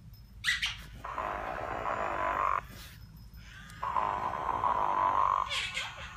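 Sleep and Snore Ernie talking toy snoring through its speaker: two long, rasping snores about a second and a half each, with a short squeaky whistle just before the first and just after the second.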